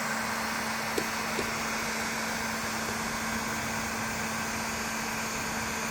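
Heat gun running with a steady fan whir and hum. Two faint clicks come about a second in.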